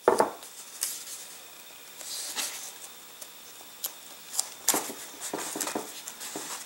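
Masking tape being pulled off the roll and pressed down over a rocket fin onto a cardboard body tube: short crackling rips and rubbing strokes, with a sharp knock right at the start and a burst of them in the last couple of seconds.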